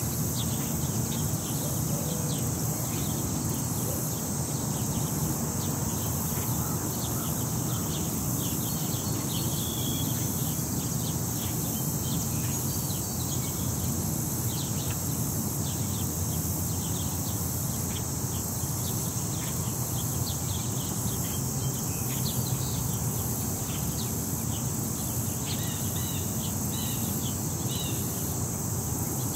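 Park ambience: a steady, high insect chorus, with many short bird chirps scattered through it over a low, even city rumble.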